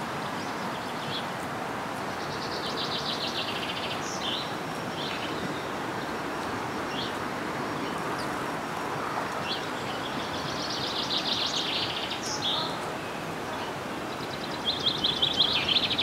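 Chaffinch singing: three song phrases, each a fast trill of about two seconds ending in a flourish, the last starting near the end, with a few single chirps in between. A steady outdoor hiss runs underneath.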